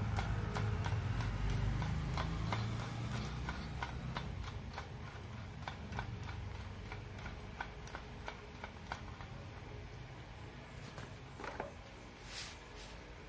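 Headset press being screwed down by hand to press bearing cups into a bicycle head tube: a run of light, evenly spaced clicks about three a second, with one louder knock about three seconds in. Background music fades out over the first two seconds.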